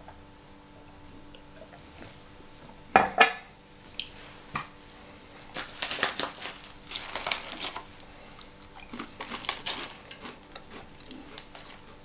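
Two sharp knocks of a drinking glass set down on a stone tabletop, then the rustling and crinkling of an MRE ration pouch being handled and opened.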